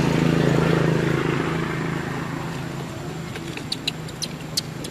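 A motor vehicle engine is heard passing, loudest in the first two seconds and then fading away. Near the end come several short, sharp, high-pitched clicks or chirps.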